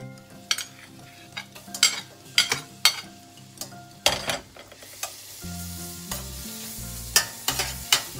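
Crushed garlic going into melted butter in a stainless steel pan: a metal spoon clinks and scrapes against the plate and pan several times, and the butter sizzles, the sizzle growing from about halfway as the garlic is stirred in.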